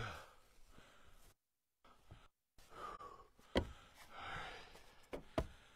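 Split firewood pieces knocking as they are set and tossed onto a pile in a pickup truck bed: two sharp knocks about two seconds apart, in the second half. Heavy breathing runs between them, and the sound cuts out completely twice, briefly, early on.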